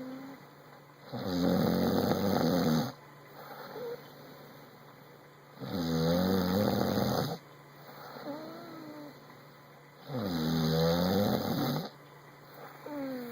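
A man snoring: three long, loud snores, each nearly two seconds, coming about every four and a half seconds, with faint wavering whistle-like tones on the breaths between them.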